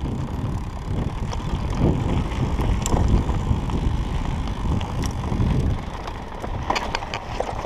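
Mountain bike rolling along a dirt trail: wind rushing over the microphone and tyre noise, with a few sharp clicks and rattles from the bike. The riding noise eases off about six seconds in.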